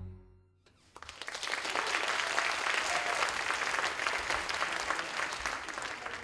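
The last of the music dies away, and after a short pause an audience breaks into applause about a second in, clapping steadily.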